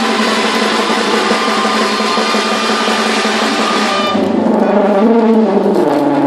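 Live ensemble music: a dense drum roll and percussion under sustained instrument notes, thinning about four seconds in to held wind notes that slide up and down in pitch.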